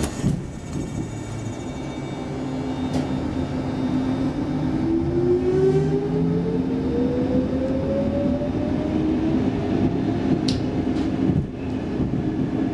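Stockholm Metro C14 subway car running, with steady wheel and track rumble and a traction-motor whine that rises in pitch over several seconds as the train accelerates. The sound changes near the end as the train enters a tunnel.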